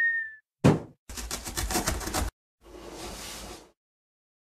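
Cartoon intro sound effects: a sudden thump a little over half a second in, then a rapid run of knocks, about nine a second, for just over a second, then a softer rushing noise lasting about a second.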